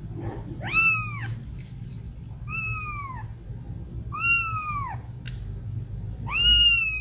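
Kitten meowing: four high, thin mews about two seconds apart, each rising then falling in pitch, the last one drawn out longest. A short sharp click falls between the third and fourth.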